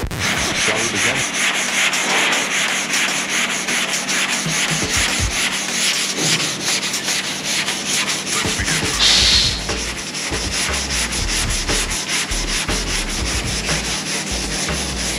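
Sandpaper rubbing over body filler on a car body panel in quick, even back-and-forth strokes, smoothing out leftover low spots in the filler. There is a brief louder, hissier patch about nine seconds in.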